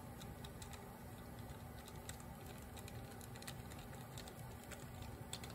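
Faint, scattered light clicks of a nut driver turning the float valve seat into a Honda GL1500 carburetor body, over a low steady hum.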